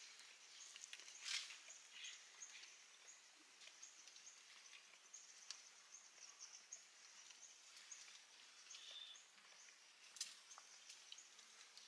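Near silence: faint open-air ambience with a few small clicks and ticks, the sharpest about a second in and another near the end.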